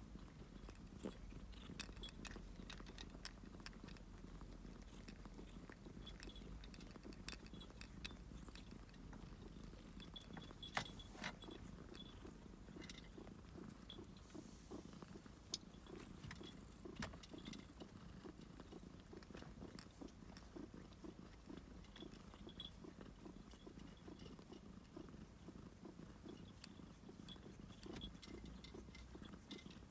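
Domestic cat purring softly and steadily close by, with a few faint clicks.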